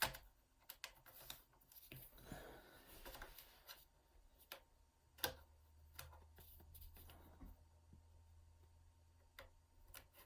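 Faint, scattered small clicks and taps of a pry pick against a laptop's plastic case and clips, the sharpest about five seconds in.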